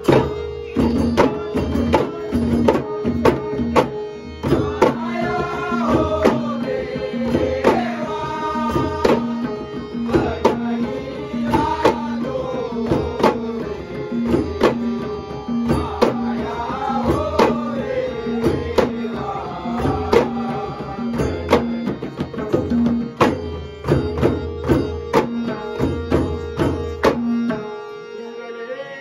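Ghumat clay-pot hand drums played together in a steady, driving rhythm for a Shimga folk song, with a man singing over them and a steady held note underneath. The drumming stops shortly before the end.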